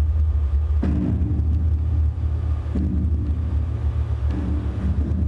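Metal ceiling wires amplified through piezo contact microphones: a steady low drone, with a low ringing tone that starts with a faint click about three times and fades over a second or so.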